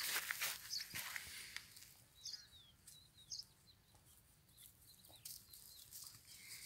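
Rustling and crackling of tall grain stalks being pushed through on foot, at the start and again from about five seconds in. In the quieter middle, a bird gives a few short, high chirping calls.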